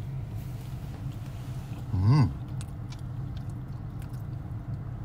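Steady low hum inside a car cabin, with a short voiced sound about two seconds in and faint clicks of someone chewing a steamed bun.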